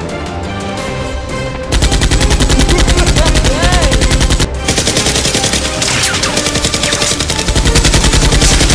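Background music, then from about two seconds in a rapid automatic-gunfire sound effect, many shots a second in two long bursts with a brief break about halfway. The effect is dubbed over a Nerf Mega Mastodon blaster firing.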